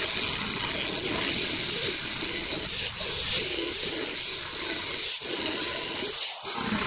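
Handheld power tool grinding rotted wood out of a fiberglass boat transom, a steady rough grinding noise.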